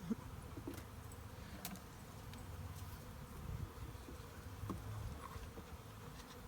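A swarm of honeybees buzzing as they fly about a hive box: a steady low hum, with single bees buzzing close past the microphone a few times.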